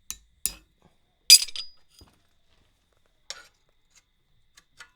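Forged steel pot rack and hooks clinking as they are handled and fitted together: a handful of short, sharp metal clinks, the loudest a little over a second in with a brief ring.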